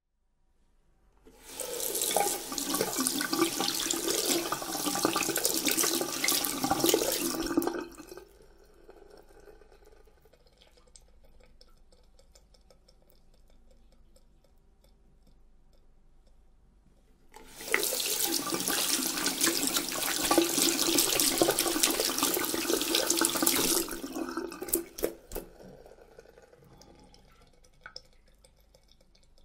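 Hands being washed under a running tap at a sink: the water runs for about six seconds and stops, and after a quiet stretch of about nine seconds it runs again for about six seconds. A few short drips and knocks follow as it stops the second time.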